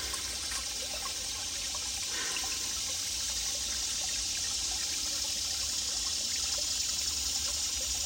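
Shallow creek trickling over rocks: a steady rush of running water.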